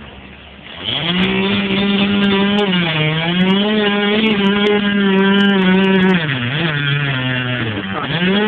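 Chainsaw opened up to high speed about a second in and held there, its pitch sagging briefly several times and dropping once near the end before climbing back.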